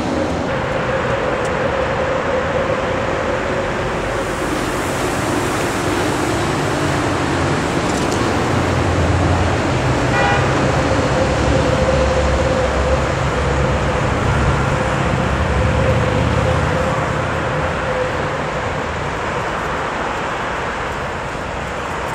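Steady city street traffic noise, with the low rumble of an elevated U-Bahn train on a steel viaduct growing louder through the middle.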